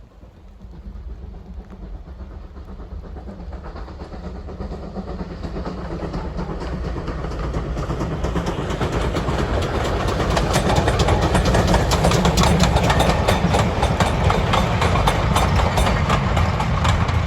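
Heritage steam-hauled train approaching along the line, growing louder over about ten seconds, then passing close with a steady low rumble and rapid clicking of wheels on the rails.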